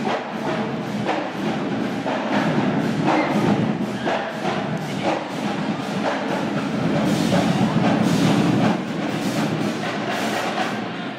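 Music with a fast, steady percussive beat of sharp, evenly spaced strokes over a full, dense sound.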